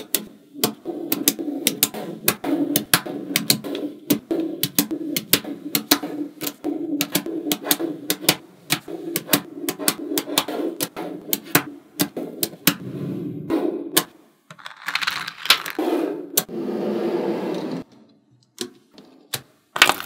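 Small magnetic balls clicking as they snap onto one another and onto a block, a few sharp clicks a second at an uneven pace, with a low rustle of balls shifting between the clicks. The clicks thin out and grow quieter near the end.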